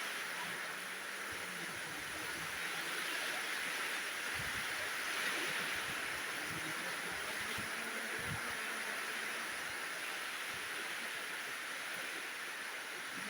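Heavy rain with strong wind: a steady hiss of rain, with brief low rumbles of wind buffeting the microphone now and then.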